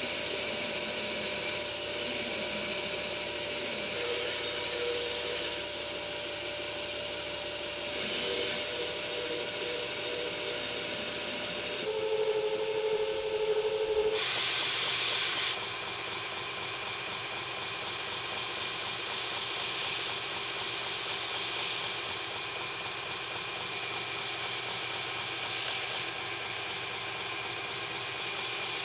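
Belt grinder running with a steel kitchen-knife blade held against the moving abrasive belt: a steady grinding noise over the machine's even hum. The sound shifts about twelve seconds in, turning briefly louder before settling again.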